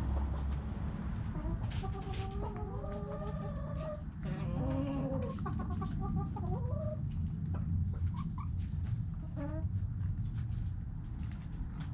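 Several chickens clucking and calling, with overlapping drawn-out calls in the first half and a few short clucks later, over a steady low rumble.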